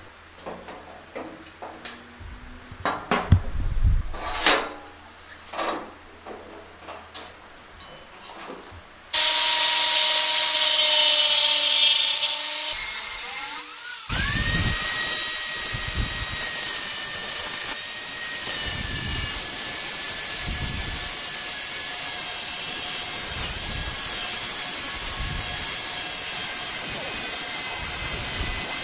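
Scattered knocks and clanks as the old axe head is handled and clamped in a steel bench vise. About nine seconds in, an angle grinder starts suddenly and runs loud and steady, grinding the rusty steel axe head, its whine settling higher from about fourteen seconds on.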